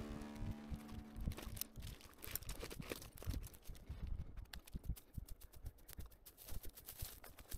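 Faint, irregular clicks and knocks with no chainsaw running, while the tail of background music dies away in the first second or two.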